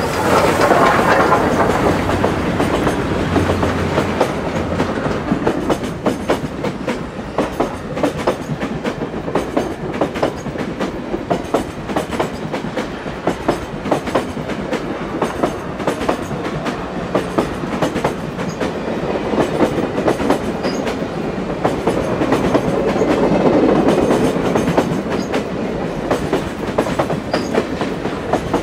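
Reading T-1 steam locomotive No. 2102 passing close by, then its string of passenger coaches rolling past. The wheels give a steady clickety-clack over the rail joints. It is loudest at the very start as the locomotive goes by, and swells again a little past the middle.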